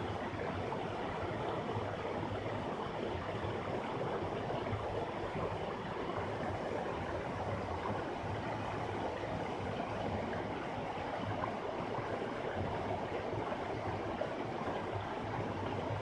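Small waterfall cascading over rock ledges into a pool: a steady rush of falling and splashing water.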